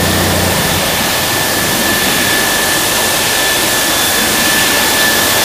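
Cardboard-making machinery running steadily: an even, loud rushing noise with a steady high whine over it, and a low hum that drops away under a second in.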